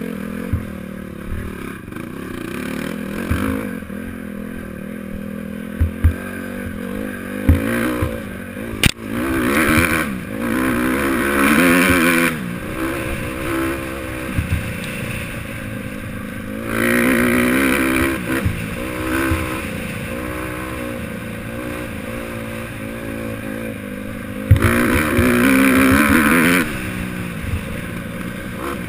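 Single-cylinder four-stroke engine of a Honda CRF150R dirt bike revving up and down as it is ridden over a rough dirt track, opening up hard three times. Knocks and rattles from the bike bouncing over bumps come through at intervals.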